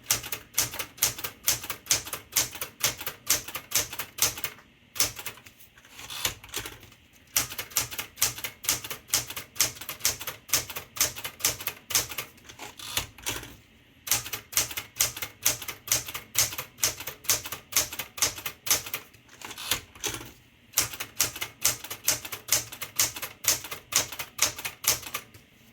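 Smith-Corona Galaxie 12 manual typewriter being typed key after key: about three or four sharp typebar strikes a second, with a few brief pauses.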